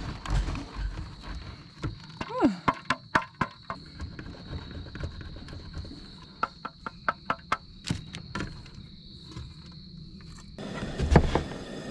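Block cheese rasped stroke after stroke down a stainless steel box grater, at about four or five quick strokes a second in places, over a steady high insect drone. Near the end the drone stops and louder knocks begin.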